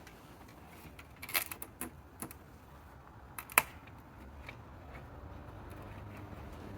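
Small metal screws and hardware being handled, giving a few separate light, sharp clicks and clinks.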